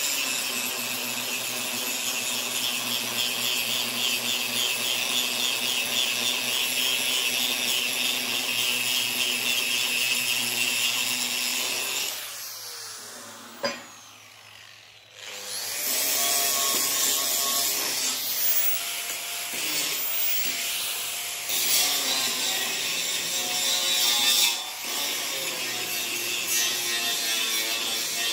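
A power tool working steel: a steady machine run with a hiss and a constant whine. It dies away about twelve seconds in, with a single sharp click during the lull, and starts again about four seconds later.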